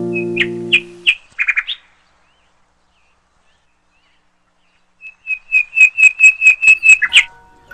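A small bird chirping: a few sharp chirps in the first two seconds, then after a pause a fast, even run of about a dozen high chirps at about five a second. Harp notes from background music ring out and fade in the first second.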